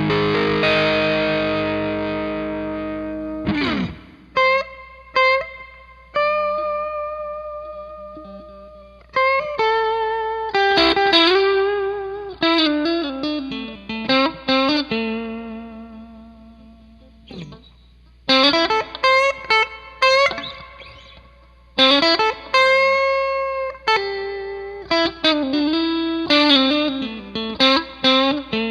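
Electric guitar played through an Xvive O2 Sweet Leo overdrive pedal: an overdriven chord left to ring, then blues-style lead phrases with string bends and vibrato, each phrase decaying before the next.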